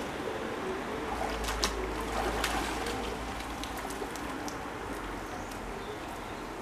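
Water splashing and dripping as a fishing magnet on a wet rope is hauled up out of canal water, with a few sharp clicks between one and a half and two and a half seconds in.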